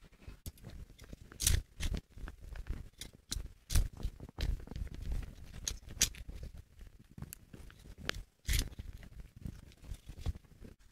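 A shovel digging into a compost heap of soil and dry crop residue around a taro plant: irregular scraping and crunching, with sharp crackles and dull thuds as the blade is driven in and levered, the loudest about one and a half, four and eight and a half seconds in.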